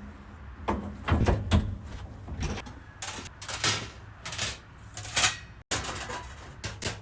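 Sheet metal being worked in a shop: irregular sharp knocks and clatters, coming thicker from about halfway in, over a steady low machine hum.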